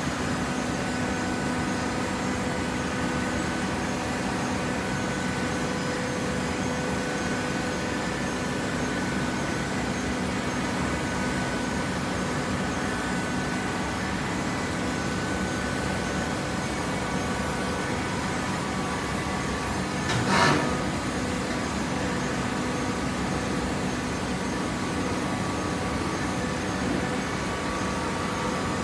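Hydraulic horizontal baler running: a steady machine hum with several held tones from its electric motor and hydraulic pump, broken once by a short clank about twenty seconds in.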